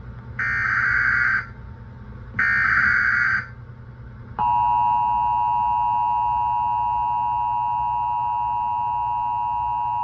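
Emergency Alert System SAME header carrying a flash flood warning: three bursts of digital data tones, each about a second long. A little over a second after the last burst, the steady two-tone EAS attention signal (853 and 960 Hz) starts and holds, announcing that the spoken warning is about to follow.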